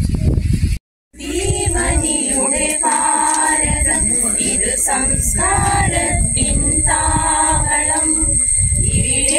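A group of women singing a Malayalam patriotic song together without instruments, starting about a second in after a brief gap. Just before it, a moment of low rumbling noise.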